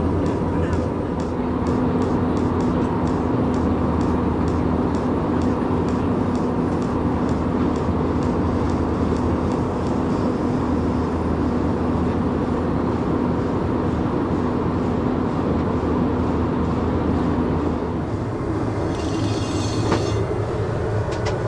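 Steady cabin noise of an Airbus A320 in flight: a constant drone of engines and airflow with a steady hum. A click and a brief hiss near the end.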